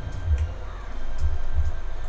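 Background music with recurring deep bass thumps.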